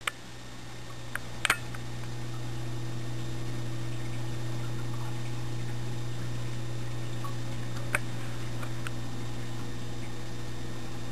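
Steady low hum and hiss of room or recorder background noise, with a few short sharp clicks, the loudest about a second and a half in and another around eight seconds in.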